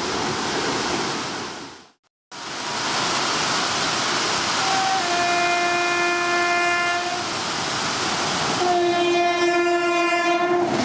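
Heavy monsoon rain, then after a short break an approaching WAP-7 electric locomotive sounds its horn in two long, steady blasts over the rain, the second starting about a second and a half after the first ends.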